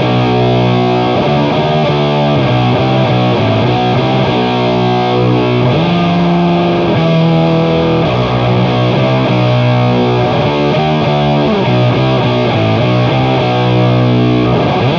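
Heavily distorted electric guitar through a blend of Boss HM-2 chainsaw distortion and Boss FZ-2 Hyper Fuzz into an Orange OR120 amp, playing a slow doom metal riff of sustained low notes. The riff leans on a dissonant flat fifth to perfect fourth interval.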